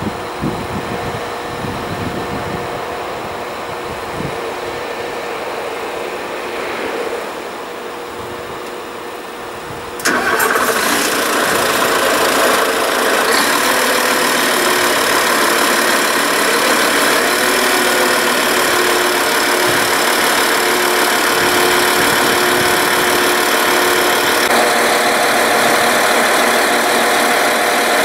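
Diesel multiple unit of the Serbian class 711 standing with its underfloor machinery running at close range: a steady hum, then about ten seconds in a sudden, much louder machine sound starts up and carries on running steadily.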